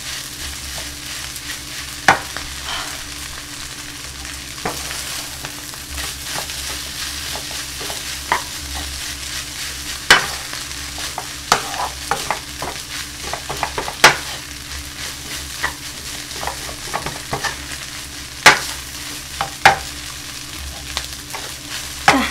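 Kimchi fried rice sizzling in a hot frying pan as it is stir-fried with a wooden spatula. A steady hiss runs under irregular knocks and scrapes of the spatula against the pan, the sharpest scattered through at a few-second intervals.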